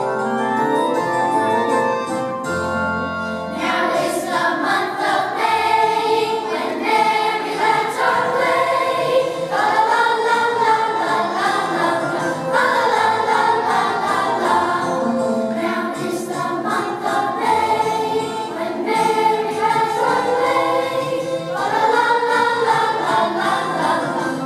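Children's choir singing, entering about four seconds in after a short piano introduction.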